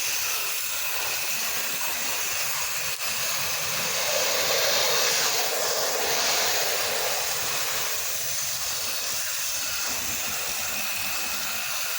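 Steady hiss of water spray from a pressure-washing wand playing on a house's siding, swelling a little about four seconds in.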